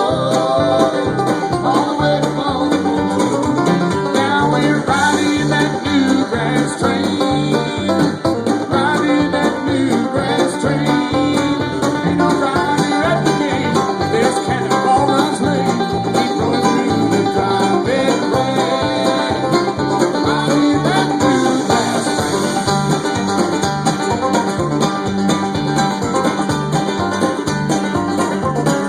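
Live bluegrass band playing an instrumental break, with banjo, guitar and a steady walking bass beat.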